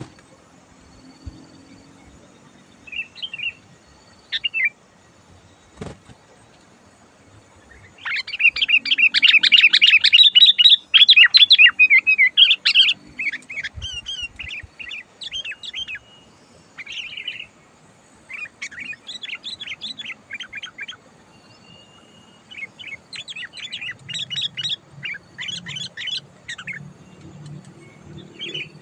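Sooty-headed bulbul (kutilang) calling in quick chattering phrases. A few short notes come first, then about eight seconds in a loud, rapid run of chatter lasts several seconds, followed by shorter bursts on and off.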